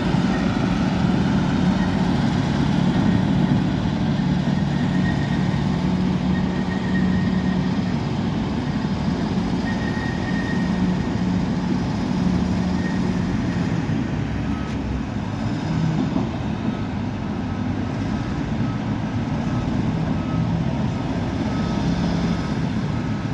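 Bulldozer's diesel engine running steadily under work, with faint intermittent high squeaks over it.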